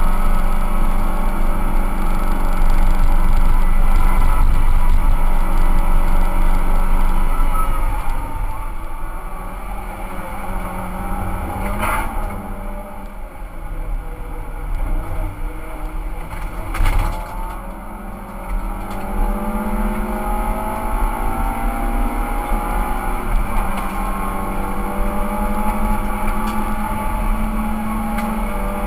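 Suzuki Swift cup car's engine running hard, its pitch climbing through the revs and dropping back at each gear change. Two sharp knocks about twelve and seventeen seconds in.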